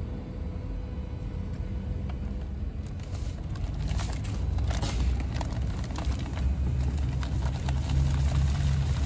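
Dry cement-and-aggregate repair mix poured from a paper sack into a plastic bucket of primer liquid: a rustling, crinkling hiss of sack and powder that starts about three seconds in and grows louder, over a steady low rumble.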